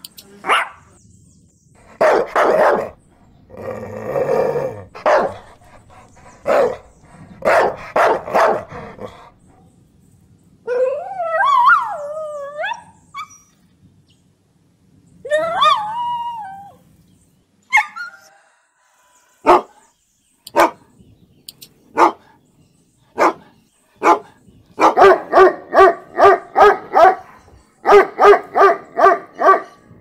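Dogs barking aggressively in bouts, with a wavering howl about eleven seconds in and again a few seconds later, then single sharp barks and, near the end, quick runs of barks at about three or four a second.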